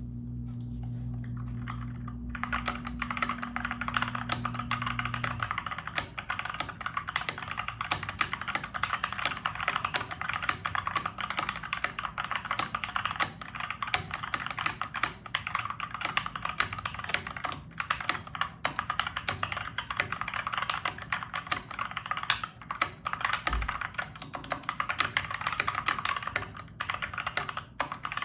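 Continuous typing on a Dierya DK61E mechanical keyboard with Gateron Brown tactile switches: a dense run of key clacks that starts about two seconds in. A low steady hum underneath stops about five seconds in.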